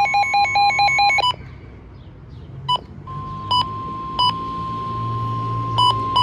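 Weather radios sounding an alert. Fast electronic beeping runs over a steady NOAA Weather Radio alert tone near 1 kHz and stops about a second in. After a short lull the steady tone returns, with scattered beeps from another radio that come faster near the end.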